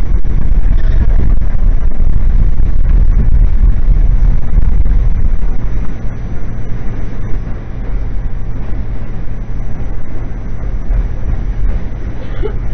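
Subway train running, heard from inside the car: a loud, steady low rumble of wheels and motors, which eases somewhat about halfway through.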